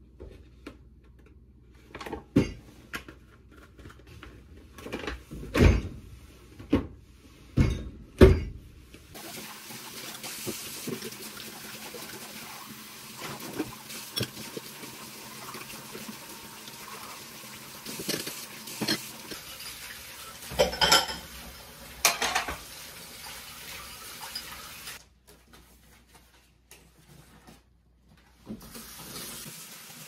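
Dishwashing at a kitchen sink: a run of sharp knocks and clatter, then the tap running steadily into the sink as dishes are rinsed, with clinks of crockery. The water stops about 25 seconds in and runs again near the end.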